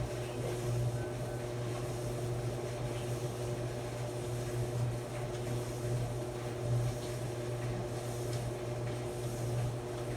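Maytag clothes dryer running: a steady motor hum with a strong low drone and a few faint steady tones above it.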